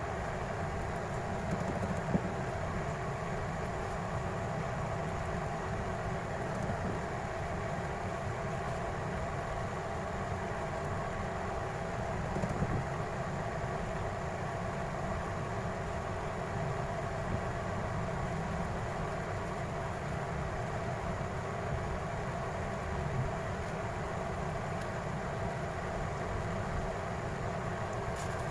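Steady mechanical hum with a low rumble underneath, like a small motor or fan running, with a couple of faint clicks about two seconds in and near the middle.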